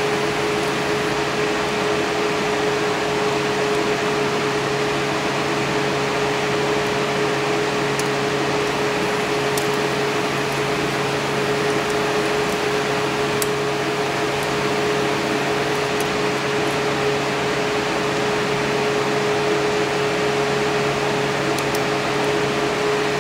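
Steady machine hum with a constant tone and an even hiss, like a room fan or air conditioner running. A few faint, sharp ticks come through it, scattered a few seconds apart.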